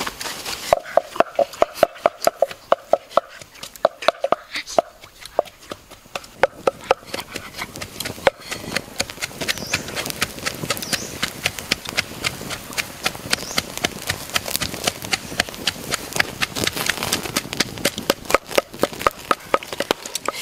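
Pestle pounding in a mortar: a run of sharp knocks, about two or three a second, each with a short ringing tone in the first few seconds, continuing as denser, lighter knocks.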